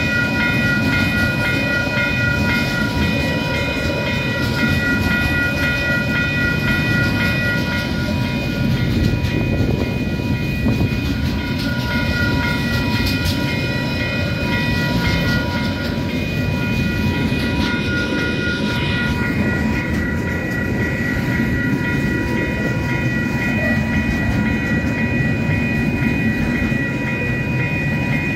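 Container freight train wagons rumbling past over a level crossing, with the crossing's electronic warning bell ringing steadily over the rumble.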